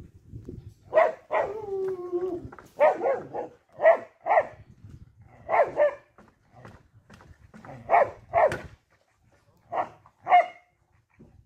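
A dog barking in short, sharp barks, about ten of them, often in quick pairs, with one drawn-out whining howl between one and two and a half seconds in.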